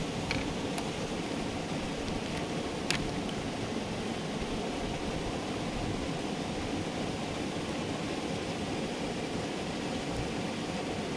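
Steady hiss of wind and lapping water, with a few light clicks in the first three seconds, the sharpest about three seconds in.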